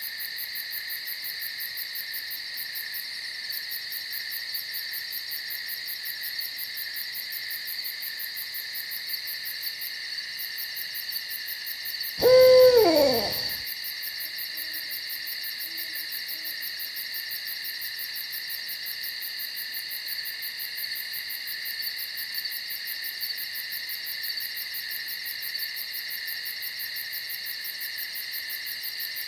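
A single owl hoot about twelve seconds in, falling in pitch over about a second and a half. It sounds over a steady, high, fast-pulsing insect chorus that runs beneath it.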